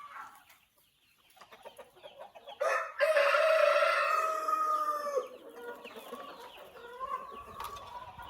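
A rooster crowing once, a loud call of about two and a half seconds starting a little under three seconds in, with hens clucking more quietly around it.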